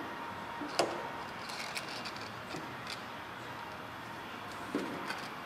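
Steady low background hiss with a few light clicks and taps, the loudest about a second in, from handling the borescope probe and its handheld display.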